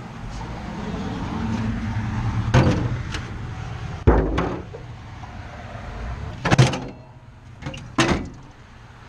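Empty plastic five-gallon water jugs being set into the stainless-steel bay of a water vending machine, knocking against the metal: four sharp knocks and thumps a second or two apart, over a steady low hum.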